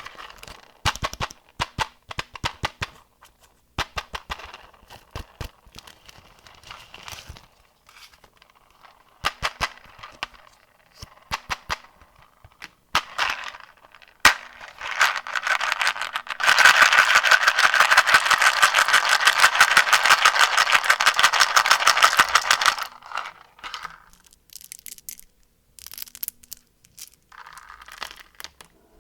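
Plastic candy wrapper being unwrapped and handled, crinkling in scattered crackles, with a dense, continuous crinkling for about six seconds past the middle before it thins out again.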